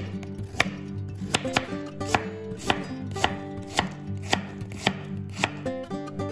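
Chef's knife chopping vegetables on a wooden cutting board, sharp knocks of the blade on the board about twice a second, over background music.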